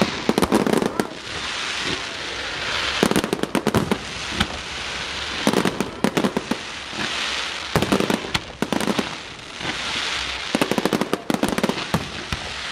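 Aerial fireworks display at close range: clusters of rapid, sharp bangs every two to three seconds, with crackling between the volleys.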